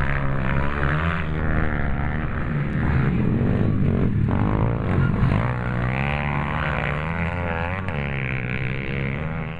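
Pit bike engines revving hard, the pitch climbing and dropping repeatedly with throttle and gear changes.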